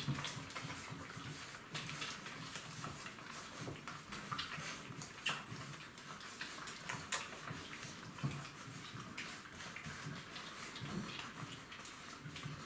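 Golden retriever puppies suckling from their mother, a run of irregular sucking and smacking clicks.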